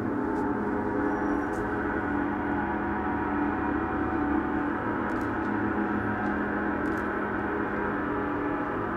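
Large suspended gong played continuously: a steady wash of many overlapping ringing tones with no single strike standing out.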